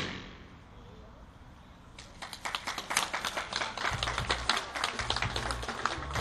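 Audience applause breaks out about two seconds in and keeps on, after the fading ring of a balloon burst. Low rumbles of the handheld camera being moved come in from about four seconds.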